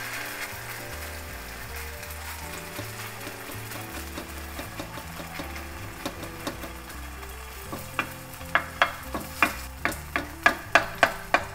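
Potato pancake batter frying in olive oil in a nonstick pan, a steady sizzle. In the last few seconds comes a quick run of sharp taps, about three or four a second, as a metal spoon presses the patty flat against the pan.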